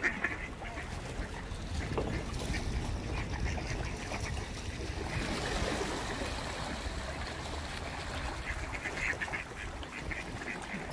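Mallard ducks quacking, with bunches of short quacks at the start and again near the end, over a steady low rumble.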